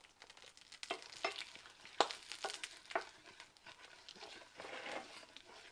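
Mustard seeds and urad dal frying in a spoonful of hot oil in a small non-stick pan, crackling with scattered sharp pops at the tempering stage, and stirred with a wooden spatula in the second half.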